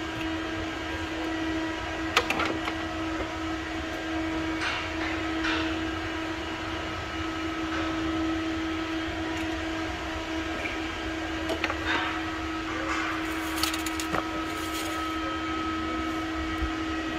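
A steady machine hum, with a few faint clicks and taps from the oil bottle being handled as a splash of engine oil is poured into the filler.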